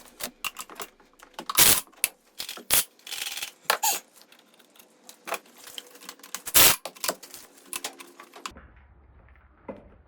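Irregular metallic clicks and clanks of a ratchet and 12 mm socket working the intake manifold screws, with several louder knocks of metal tools.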